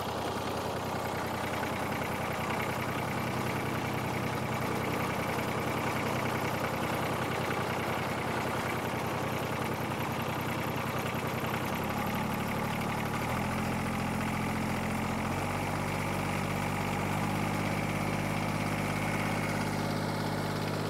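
Kubota D662 three-cylinder diesel running steadily, freshly started after a valve lash adjustment. About twelve seconds in its engine note shifts in a few steps before settling into a steady run again.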